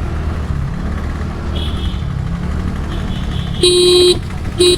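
Vehicle horn beeping twice near the end, a half-second honk then a short one, over a steady low rumble of a ride through traffic.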